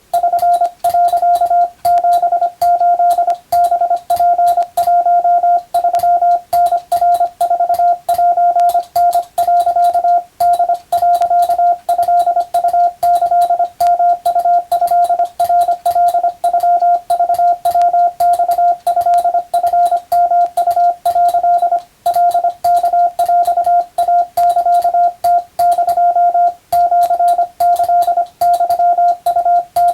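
Morse code (CW) sent as a single steady tone of about 700 Hz, keyed rapidly on and off in dots and dashes with short pauses between characters, at a fast practised operator's speed.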